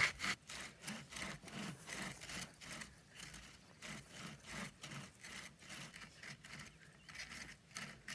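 Hand saw cutting firewood in steady back-and-forth strokes, about three a second. The strokes are fainter through the middle and stronger again near the end.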